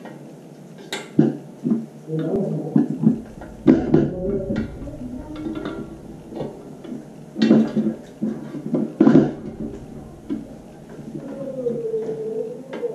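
A GGM gear motor being handled and twisted onto its shaft and bracket on a stainless-steel filter lid. Several sharp metal knocks and clunks come at irregular moments, with scraping and squeaking of metal on metal between them.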